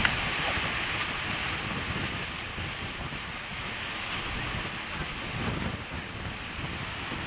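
Roar of a violent tornado at close range: a steady rushing noise with wind on the microphone, easing a little after the first couple of seconds.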